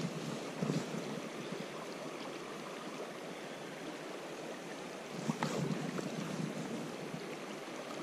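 Steady rush of a fast-flowing river, with a few brief soft sounds just under a second in and again around five and a half seconds in.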